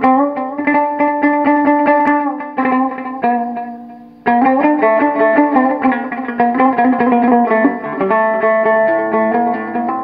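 Background music led by a plucked string instrument playing a melody. It dies away and comes back in fuller about four seconds in.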